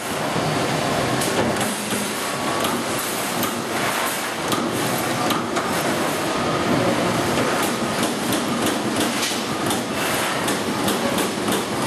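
Amada Pega 244 CNC turret punch press running: steady mechanical noise broken by frequent, irregularly spaced sharp knocks.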